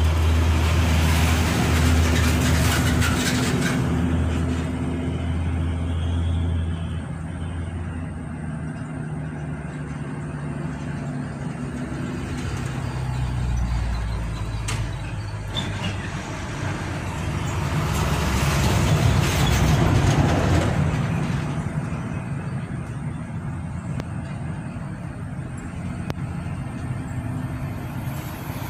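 Road traffic: a motor vehicle's engine running through the first few seconds with its pitch falling away, and another vehicle swelling past about two-thirds of the way in.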